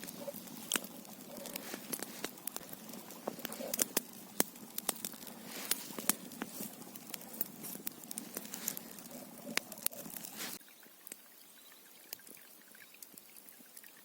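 Irregular crackling clicks and pops over a low hiss, which cut off abruptly about ten and a half seconds in, leaving a faint hiss with a few light ticks.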